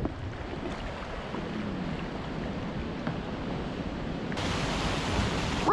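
Steady rushing noise, turning hissier about four seconds in.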